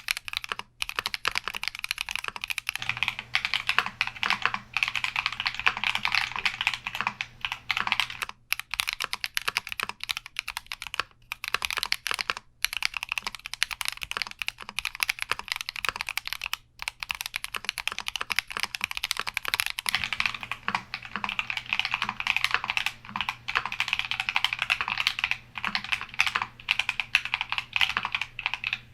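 Fast, continuous typing on a Keychron Q60 mechanical keyboard: a dense run of key clicks with a few brief pauses.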